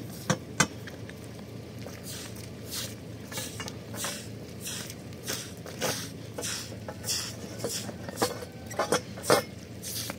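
Steel tent-frame pipes knocking and clinking against each other and on a concrete slab as the frame is laid out, with a few sharp metal knocks. A broom's repeated scratchy strokes sweeping the concrete run between them.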